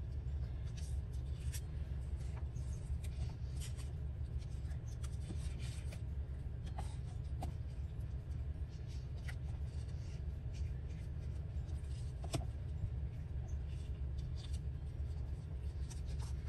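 Paper scraps being handled and pressed down onto a collage board: scattered light rustles, rubs and taps over a steady low hum.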